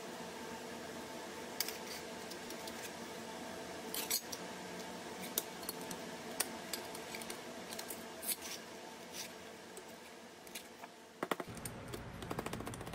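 Metal clinks and taps as steel pieces are set down and knocked on a small steel bench anvil, then a quick run of light hammer taps near the end as the pressed-steel toy truck cab panel is hammered against the anvil to work out a dent.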